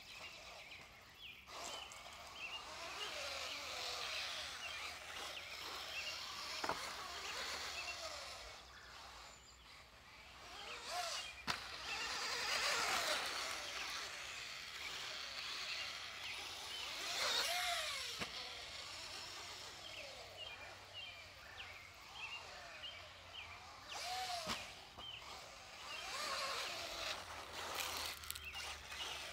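Outdoor background noise with birds chirping and a few passing motor whines that rise and fall in pitch, the loudest near the middle.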